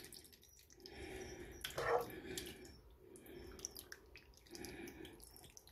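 Soup broth being ladled out of a pot and poured over a bowl of rice and stew: faint sloshing and dripping of liquid, with a few small clicks of the ladle.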